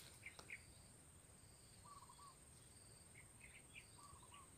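Near silence: faint forest ambience, with a steady high-pitched insect trill and a few short, faint chirping calls, two of them about two seconds apart.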